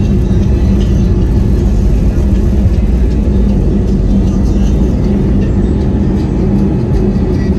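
Airbus A320neo's Pratt & Whitney PW1100G geared turbofans at takeoff thrust during the takeoff roll, heard inside the cabin as a loud, steady low rumble. Music from a passenger's phone plays underneath.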